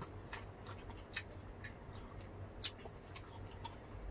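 Close-miked eating sounds: people chewing, with scattered small clicks and crunches from mouths and food at an irregular pace, one sharper click a little past halfway.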